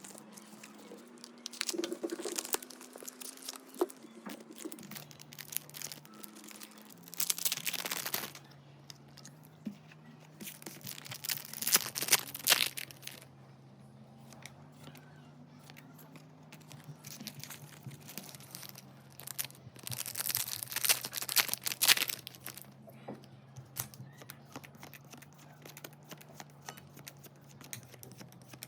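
Packaging of a Pokémon TCG box being torn open and crinkled, in four spells of tearing and rustling with pauses between them. The loudest spell comes a little before the middle.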